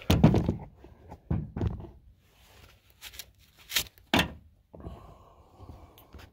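Handling noise from a phone being set down and propped up: a loud thump, then several knocks and a few sharp clicks, and a brief rustle near the end.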